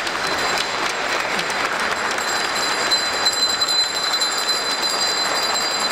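A church congregation applauding steadily, many hands clapping at once.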